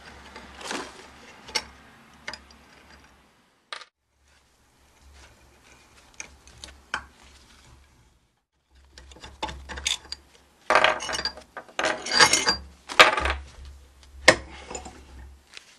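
Socket ratchet clicking in bursts as a nut is wound down on a steel spacer plate, drawing a new wheel stud into a Classic Mini's drive flange, mixed with metal clinks of the plate and flange being handled. The ratcheting is busiest and loudest in the second half.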